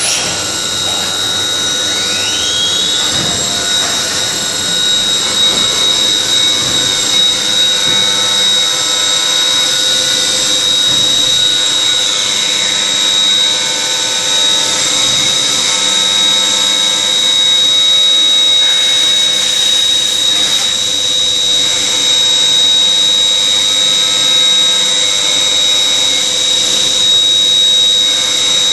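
Leadwell V-50L CNC vertical machining centre milling, running with a steady high-pitched whine over the noise of the cut, with a brief rising tone about two seconds in.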